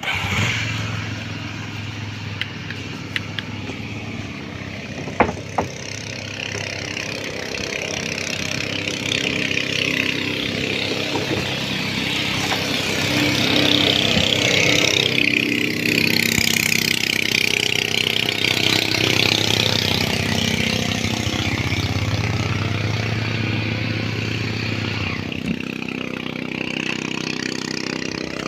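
Small ferry boat's engine running steadily, with a constant low hum and a hissing rush of water and wind. It grows louder in the first half as the boat gets under way, and there is a single sharp click about five seconds in.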